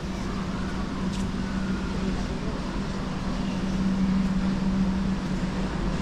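A steady low mechanical hum at one unchanging pitch, a little louder about four seconds in, over a light outdoor noise haze.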